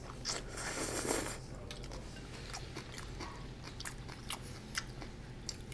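Black bean noodles (jjajangmyeon) slurped from chopsticks in a loud rush in the first second, then close-up chewing with many small wet mouth clicks.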